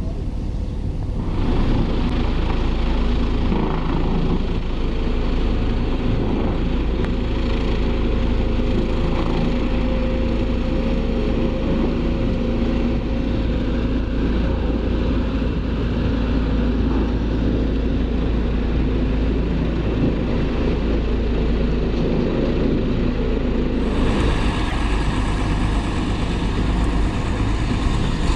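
Diesel engine of heavy construction machinery running steadily under load, a constant low drone with a steady hum.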